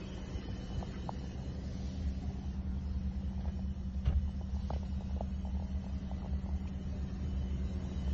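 Steady low rumble with a constant hum inside the cabin of a Bentley Bentayga Hybrid, with a few faint clicks.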